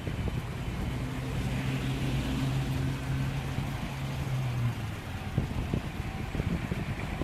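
Cars idling in stopped road traffic: a steady engine hum for the first five seconds or so, over a constant low traffic rumble.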